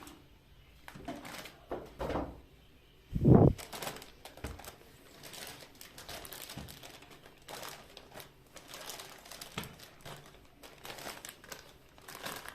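Packaging being handled: scattered crinkling and rustling with small clicks, and one dull thud about three seconds in that is the loudest sound.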